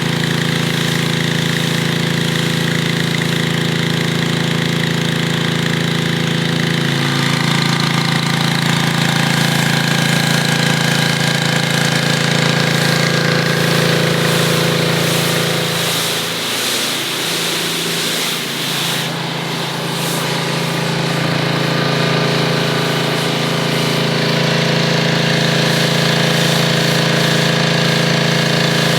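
Gas engine of a Snapper 3100 PSI pressure washer running steadily. From about 16 to 19 seconds in, its note dips and shifts before settling back.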